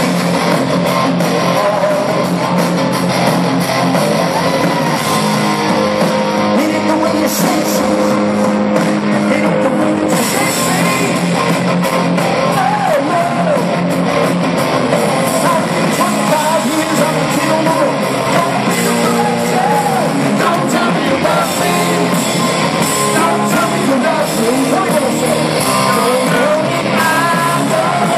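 Rock band playing live, with electric guitars, keyboards, drums and lead singing, recorded loud from the audience. The singing stands out more from about ten seconds in.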